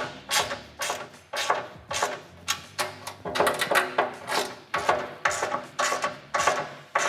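Bolts on a steel cargo-rack tray being tightened with a wrench and ratchet, about two sharp metallic strokes a second, each making the steel panel ring briefly.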